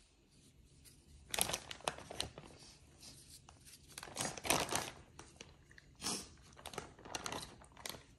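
Plastic bag crinkling and rustling in several short bursts of handling, with quieter pauses between.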